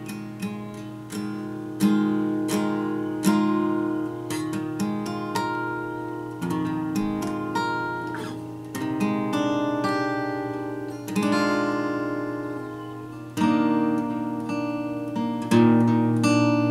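Acoustic guitar played solo: picked and strummed chords, each ringing out and fading, with a few louder strums.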